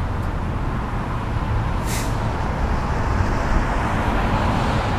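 Steady roadside highway traffic noise, cars and trucks passing, as picked up by a Sony PCM-D10 handheld recorder's built-in microphones. There is a brief hiss about two seconds in.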